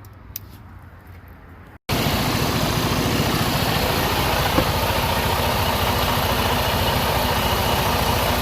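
Vehicle engine idling steadily, heard loud and close, starting suddenly about two seconds in after a short stretch of low background noise.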